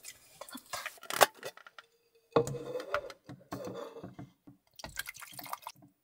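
Water poured from a plastic bottle into the plastic tank of a small tub-shaped humidifier, coming in three uneven spells. A few light handling clicks and one sharp knock come first, about a second in.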